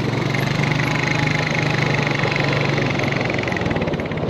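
Small petrol outboard motor running steadily, a low, even engine hum with fast regular firing pulses.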